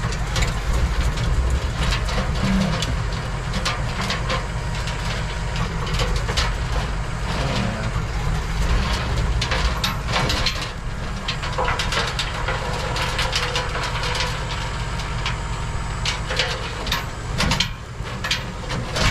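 An excavator's diesel engine runs steadily under load, with many irregular knocks and scraping as the bucket shakes and tamps loose backfill soil.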